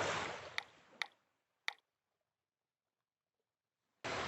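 A rushing noise fades out, and three short sharp clicks come in the first two seconds. Then there is dead silence until a rushing noise cuts in abruptly near the end.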